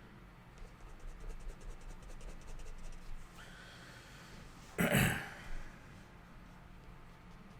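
A person's short, loud breath close to the microphone, about five seconds in, against quiet room tone.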